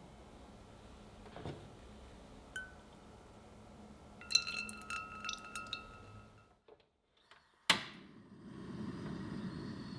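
Whipping cream poured into a saucepan, with light clinks and ringing from the pan about four seconds in. Near the end a gas stove burner is lit: one sharp igniter click, then the steady low rush of the flame.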